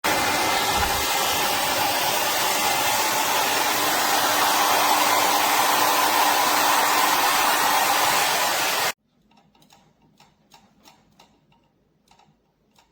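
LEBENLANG 2100 W ionic hair dryer blowing steadily, a loud even rush of air with a faint motor hum. It cuts off abruptly about nine seconds in, and faint scattered ticks follow.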